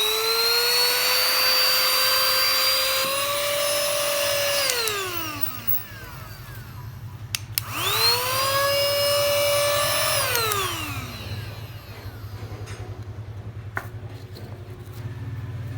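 Small motor of a 2-in-1 portable vacuum cleaner switched on twice. Each time it whines up quickly, runs steadily for about three seconds, then spins down with a falling whine. A low hum remains afterwards.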